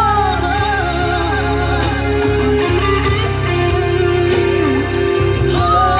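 Live worship music: a church band plays on between sung lines of a praise song, with a steady bass line, sustained guitar or keyboard notes and cymbals. A singing voice comes back in near the end.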